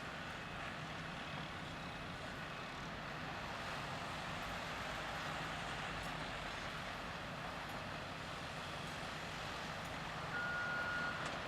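Diesel engines of an excavator and articulated dump trucks running steadily. A back-up alarm tone starts near the end.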